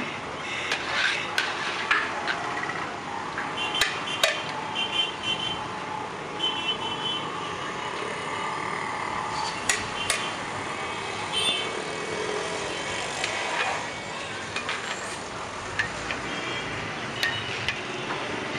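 A metal ladle knocking and scraping against a large aluminium pot as a batch of rice is turned over, with sharp clanks every few seconds over a steady background din.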